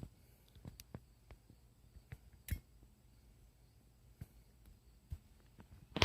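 Wire being stripped by hand: faint scattered clicks and handling sounds, with one sharper click about two and a half seconds in.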